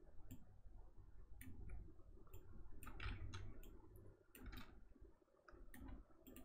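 Faint computer mouse clicks at irregular intervals, about a dozen, over a low steady hum.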